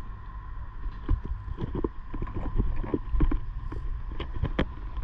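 Gloved hands handling a thick stranded high-voltage jumper cable and its metal clamp hardware on a disconnect switch: irregular knocks and clicks, over a steady low rumble and a thin steady tone.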